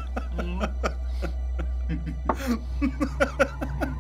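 A man laughing in short bursts, once near the start and again from about two and a half seconds in, over a steady low hum.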